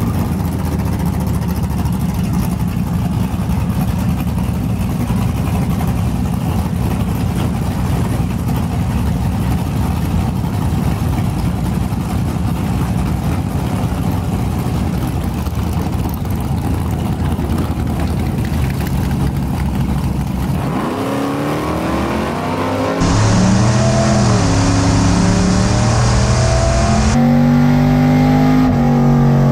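Drag-racing pickup truck's engine running steadily at the start line for about twenty seconds. From about two-thirds of the way in it revs hard under acceleration, its pitch climbing and dropping back several times as the gears change.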